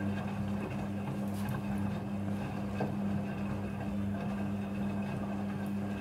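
Midea front-loading washing machine running, a steady motor hum with a few faint knocks.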